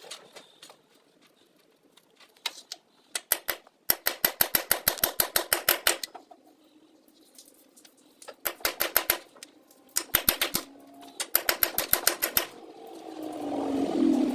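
Rapid mechanical clicking, about nine clicks a second, in several bursts with short pauses, followed near the end by a rising whir.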